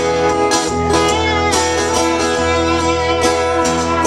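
Live country music with no singing: guitar and lap steel guitar playing, with the lap steel sliding in pitch about a second and a half in.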